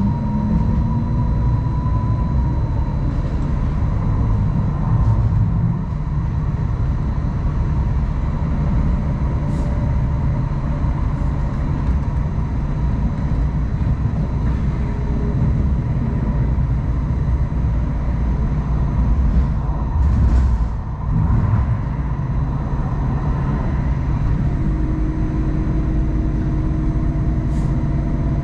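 Hong Kong Light Rail Phase I light rail vehicle running: a steady low rumble of wheels on track with a thin motor whine, a few sharp clicks from the rails, and a change in the whine near the end.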